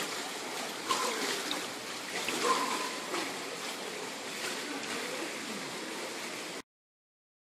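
Swimming-pool water sloshing and washing into the overflow gutter at the pool edge as a steady wash, with a few brief louder sounds about one and two and a half seconds in. The sound cuts off abruptly near the end.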